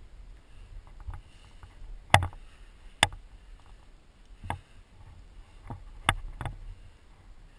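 A climber's contact noises on granite: a handful of sharp knocks and scuffs as hands and gear bump the rock, about six in all, the loudest about two seconds in.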